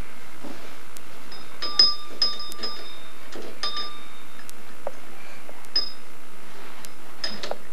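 Small metal bell on a toy playhouse rung by pulling its hanging handle: several separate, irregular dings, the loudest about two seconds in.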